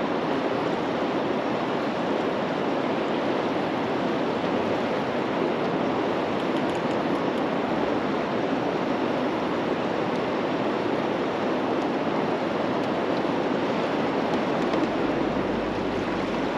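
Steady, even rush of moving river water with no breaks. A low rumble comes in near the end.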